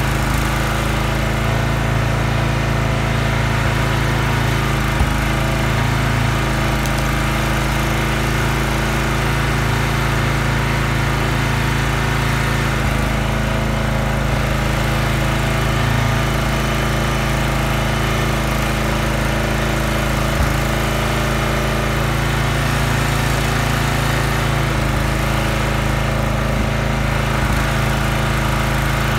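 Gas engine of a Huskee hydraulic log splitter running steadily while firewood rounds are split, with a couple of faint knocks of wood.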